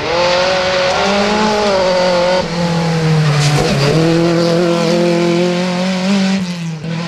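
Rally car engine running hard at high revs, its pitch dipping and climbing again a couple of times with lifts of the throttle and gear changes.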